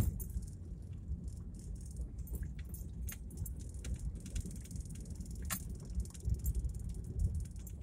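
Car cabin sound while driving slowly over a rough stone road surface: a steady low rumble from the tyres and road, with frequent small rattles and clicks from inside the car.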